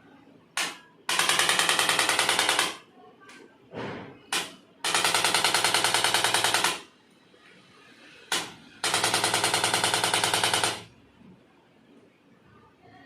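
Handheld electric percussion device rattling in three bursts of rapid, even strokes, each burst lasting about two seconds and led by a short click.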